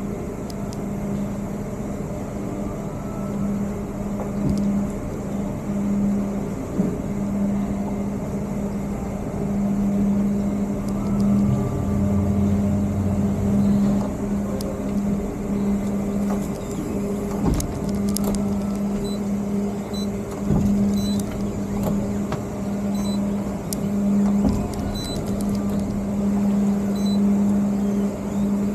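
Towboat engine running at low speed while manoeuvring, a steady hum that swells and eases a little, with a few sharp knocks in the second half.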